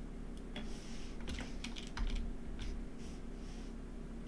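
Irregular keystrokes and clicks on a computer keyboard as a value is typed in, over a low steady hum.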